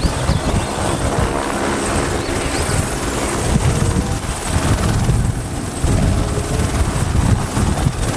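Helicopter sound: a steady chopping rotor over engine noise, cutting off abruptly at the end.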